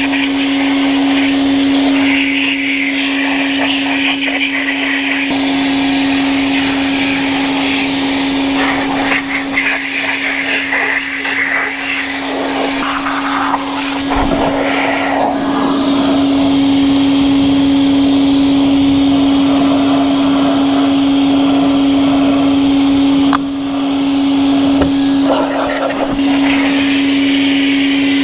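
Vacuum cleaner run as a blower, its motor whining at a steady pitch while air rushes out of a hose with a paper cone nozzle, blowing rinse water off a wet car's body. The air noise shifts as the jet moves over the panels, and the motor dips briefly once near the end.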